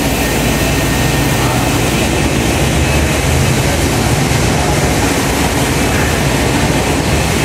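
Steady whooshing noise with a low, unsteady rumble, from ceiling fans running in a tiled room.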